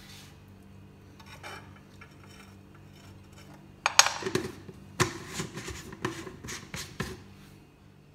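A metal spoon scraping and clicking against the bottom of a granite-coated nonstick frying pan as a spoonful of coconut oil is spread around. It starts about four seconds in with a sharp scrape, followed by several quick clicks and scrapes over the next three seconds.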